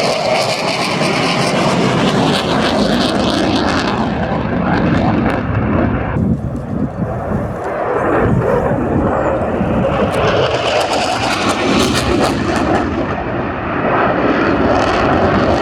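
Dassault Rafale C fighter's twin Snecma M88 jet engines, loud and ragged with crackle as the jet flies its display. The hiss thins out for a couple of seconds about six seconds in, then swells back up twice.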